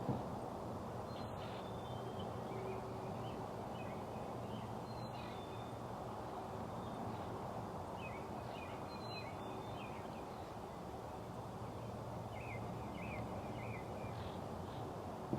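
Outdoor ambience: a steady low background noise with birds calling, short quick chirps repeating on and off throughout.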